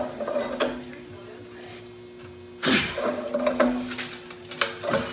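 A cut-off steel bracket knocking and scraping against the tractor's steel frame as it is wiggled loose by hand. There are a handful of separate metallic clanks, with the loudest near the middle.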